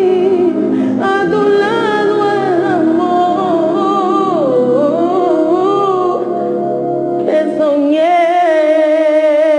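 A woman singing a melody into a handheld microphone, sliding between notes, then holding one long note with vibrato from about eight seconds in.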